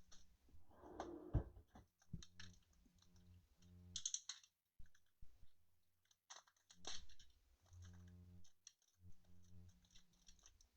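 Faint scattered clicks and taps, with a low hum that switches on and off several times.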